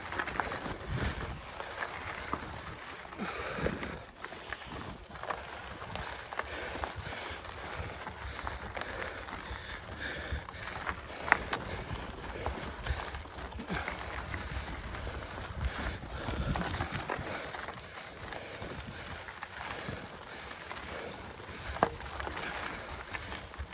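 Mountain bike ridden uphill on a dirt trail: steady tyre and drivetrain noise with a low rumble, two sharp clicks partway through, and the rider's heavy breathing.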